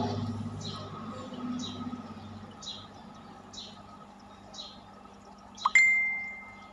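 A short high chirp repeating about once a second, over a low hum that fades away. Near the end a sharp clink rings on in one steady tone for about a second.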